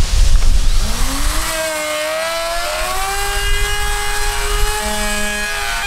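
Small handheld electric trim router switched on and spinning up with a rising whine, then running at a steady pitch as its chamfer bit cuts into the fiberglass hull around a thru-hull hole.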